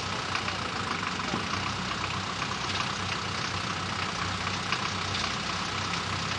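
A Land Rover Series off-roader's engine idling steadily.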